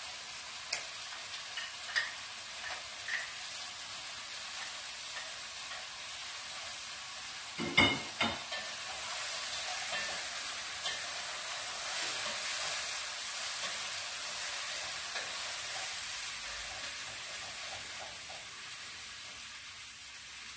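Chicken and onion sizzling in oil in a pot while being stirred with a wooden spoon. There are a few light taps early on, a louder knock about eight seconds in, and the sizzle grows louder for a few seconds after that.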